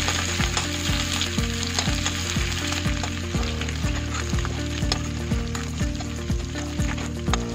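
Cauliflower florets sizzling in hot oil in a steel wok, a metal spatula scraping and stirring them as they are lifted out. Background music with a steady beat plays underneath.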